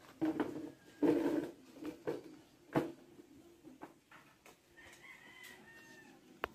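Chickens calling, a run of short loud calls in the first three seconds, then fainter chirps, with a sharp click just before the end.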